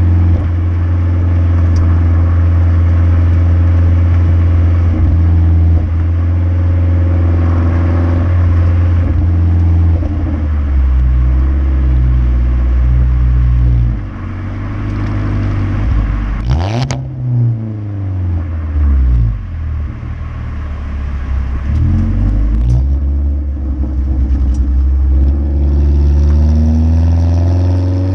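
A 2015 Ford Focus SE's 2.0-litre four-cylinder, running through a muffler-deleted exhaust while driving, drones steadily at cruise. Past the middle the revs fall and swing, with one sharp pop a little over halfway and a few lighter crackles after it. The revs climb again near the end.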